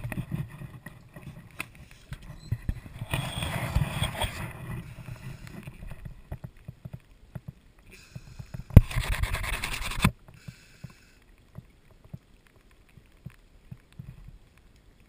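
Handling noise of an action camera in a waterproof housing: rubbing and scraping against the housing, then a sharp knock about nine seconds in as it is set down, a second of rustling, and after that near quiet with scattered faint ticks.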